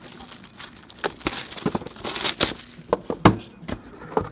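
Plastic shrink-wrap crinkling and rustling as it is pulled off a cardboard National Treasures Hockey card box, mixed with taps and knocks of the box being handled; the loudest knock comes a little past three seconds in.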